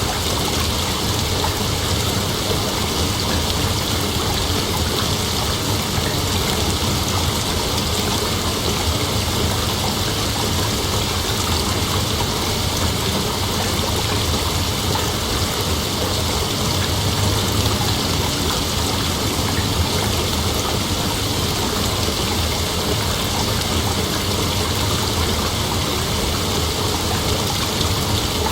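Heavy rain falling steadily, an even unbroken hiss with no thunder clap.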